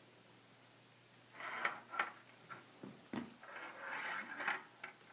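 Small ball rolling and clicking along the plastic track inside a Perplexus Epic maze sphere as it is tilted: two spells of light rattling, about a second and a half in and again near the end, with a few single clicks between.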